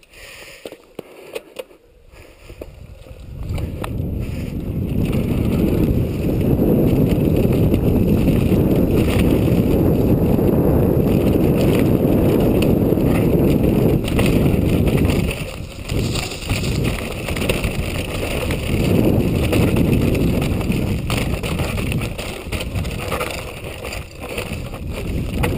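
Wind buffeting the microphone of a helmet camera on a mountain bike riding downhill over a rocky dirt trail, mixed with the rolling of the tyres. It starts with a few sharp clicks, swells over the first few seconds as the bike picks up speed, then holds loud and steady, easing off briefly twice.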